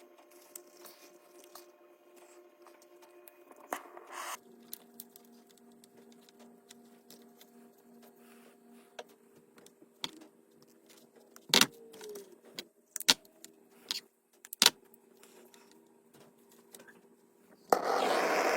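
Faint, scattered clicks and knocks of small objects being handled over a low steady hum, with a few sharper knocks about two-thirds of the way in. About a second before the end, a loud steady hiss starts abruptly.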